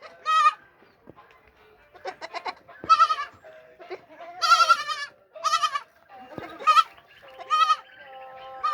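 Goats, including young kids, bleating repeatedly: about six high, quavering bleats at irregular intervals, some overlapping.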